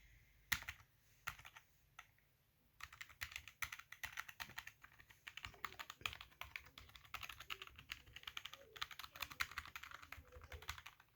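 Computer keyboard keys being pressed. A few separate clicks come first, then from about three seconds in a fast, continuous run of key presses as the letter keys are typed.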